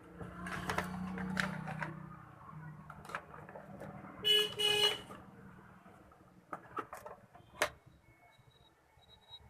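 A vehicle horn sounds two short toots a little over four seconds in, over the low hum of a passing engine. A few sharp clicks follow near the end.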